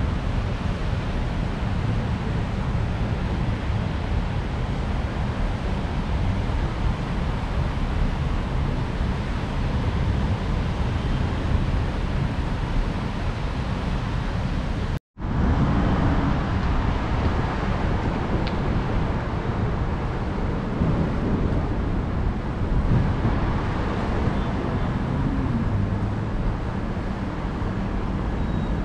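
Steady rushing noise of heavy rain and wind, with traffic running on wet roads and wind buffeting the microphone. The sound cuts out for an instant about halfway, then carries on unchanged.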